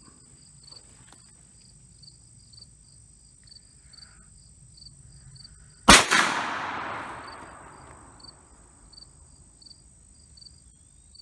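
A single shot from a Rossi youth single-shot .410 shotgun firing a 2.5-inch Remington slug, about six seconds in, the report trailing off over about two seconds. Crickets chirp in a steady pulse.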